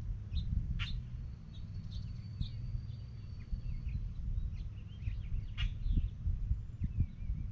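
Songbirds calling outdoors: many short high chirps and whistles, with one thin high note held for about three seconds. Two sharp clicks stand out, and a steady low rumble runs underneath.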